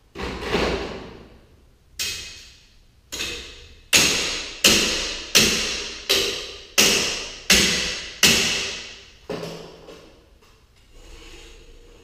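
Metal striking the steel torsion spring shaft hardware of a garage door, about eleven ringing blows. They start spaced out, settle into a steady beat of roughly three blows every two seconds, then stop with one last blow about three quarters of the way through.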